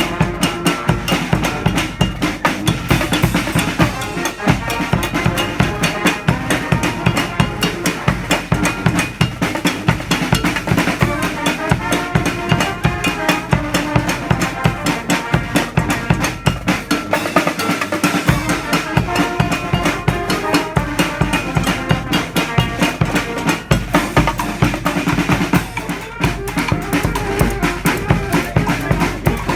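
Marching band playing a medley: wind instruments over a steady drum beat with bass drum and snare. The deep bass drops out for a moment about two-thirds of the way through.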